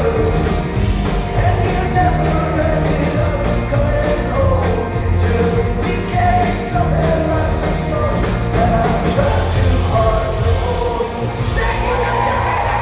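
Live rock band playing with a sung lead vocal, recorded from within the audience. Drums, bass and guitars play throughout, and near the end the band's sound thins out as the song winds down.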